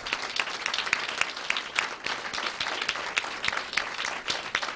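Audience applauding: many hands clapping steadily, dying away just after the end.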